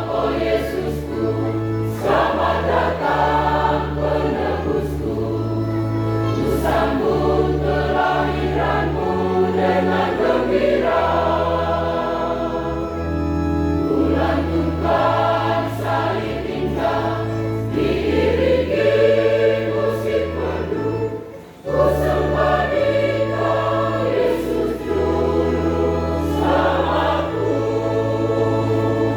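Church choir singing a hymn over steady sustained low bass notes, with a short break about three-quarters of the way through.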